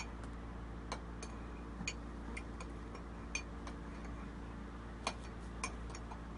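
Spoon tapping and scraping against a cup of ice cream: about a dozen light, irregularly spaced clicks.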